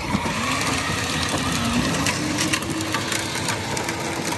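Power Wheels ride-on toy vehicles pulling away, their electric motors and gearboxes whining. The whine rises in pitch over the first couple of seconds, then holds steady over a rough noise with scattered clicks.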